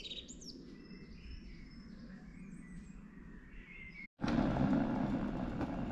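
Woodland birds chirping and whistling over a faint low background rumble. About four seconds in, the sound cuts abruptly to a louder, steady rushing noise with no bird calls standing out.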